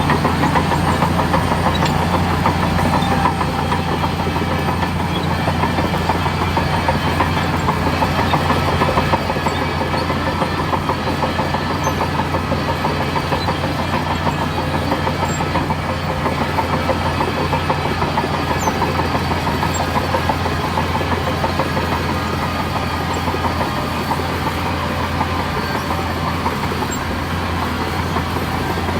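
Heavy diesel engine of earthmoving machinery running steadily, slightly quieter after about nine seconds.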